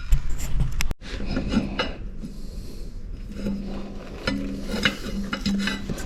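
Metal motorcycle parts being handled and fitted by hand: light clicks, knocks and scraping as the rear brake caliper mount is worked into place by the rear wheel.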